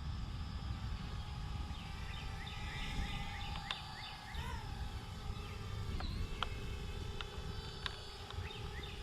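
Faint steady whine of a Parrot Bebop 2 quadcopter's propellers heard from a distance, over wind rumble on the microphone, with a few short bird chirps a couple of seconds in and a couple of sharp ticks about six seconds in.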